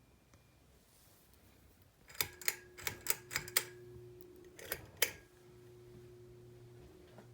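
A ceiling fan's switch clicks about eight times in quick succession, and a steady motor hum starts with the first click and keeps going as the Litex Diamond Crystal fan runs.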